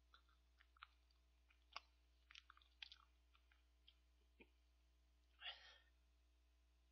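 Faint mouth sounds of eating vanilla ice cream: scattered small clicks and smacks, then a short breathy sound about five and a half seconds in.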